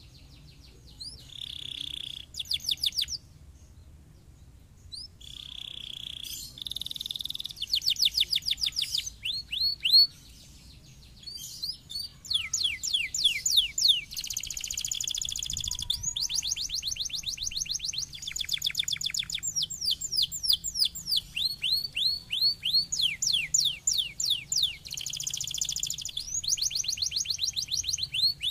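Domestic canary singing: long phrases of fast trills made of quickly repeated falling notes, mixed with buzzy rolls, broken by two short pauses.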